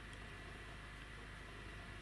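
Faint, steady hum of a running generator, with a low rumble and a thin steady tone.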